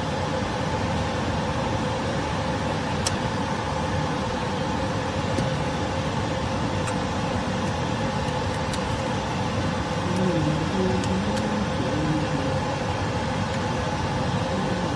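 Steady mechanical hum of running machinery with a couple of constant tones. Several light clicks of metal parts being handled sound through it.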